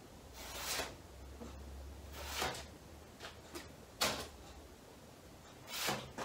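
Body-filler spreader scraping filler across a steel hood panel in four separate short strokes, about two seconds apart.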